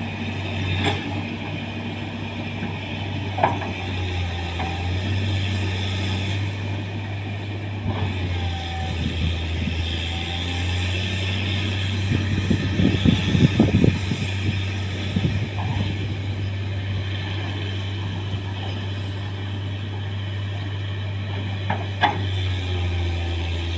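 Komatsu excavator's diesel engine running steadily. Occasional sharp knocks come over it, with a quick run of them about halfway through.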